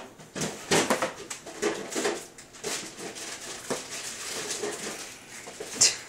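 Babbling, coos and squeals from a baby and a toddler, made up of many short, irregular sounds with a sharp high squeal near the end.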